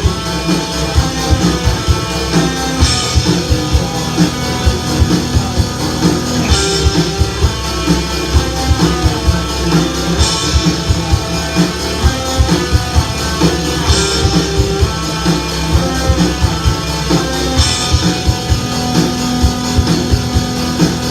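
Rock music: guitar over a drum kit, with a cymbal crash about every three and a half to four seconds.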